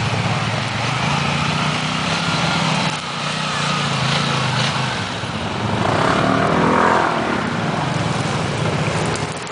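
ATV engine running under load as the quad climbs a steep muddy bank, the throttle rising and falling. It gets louder for a moment about six seconds in.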